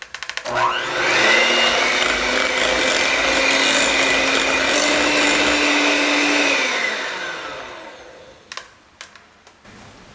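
Electric hand mixer with twin wire beaters starting up about half a second in with a rising whine, running steadily as it beats a thick cream mixture in a glass bowl, then winding down with falling pitch about seven seconds in. A few sharp clicks come before it starts and near the end.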